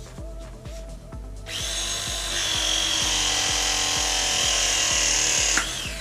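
Battery-powered ProPress press tool crimping a copper fitting onto copper pipe. Its motor whines for about four seconds, starting about a second and a half in, with its pitch sagging slightly as the jaws close, then stops abruptly as the press completes.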